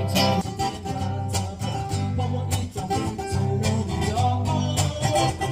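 Music led by a strummed guitar over sustained bass notes.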